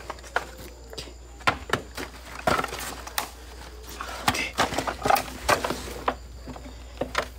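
Irregular crackling and rustling of dry leaves and debris being disturbed by hand, with scattered sharp clicks throughout.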